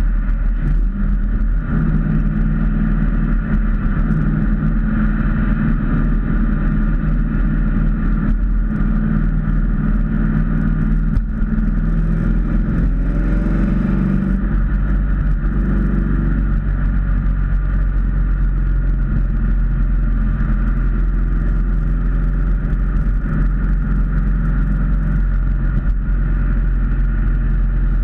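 Ford Mustang cruising at highway speed, heard from inside the cabin: a steady engine drone over road rumble, its pitch wandering briefly around the middle.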